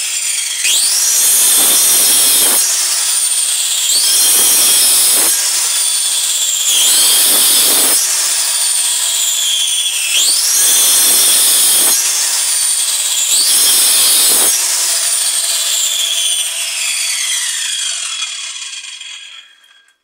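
Handheld circular saw making about five short, shallow cuts into a wooden board, its motor pitch shifting with each cut. Near the end the blade winds down to a stop.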